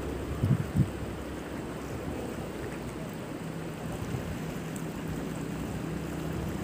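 Steady rushing of a wide, shallow river, with two brief gusts of wind on the microphone in the first second.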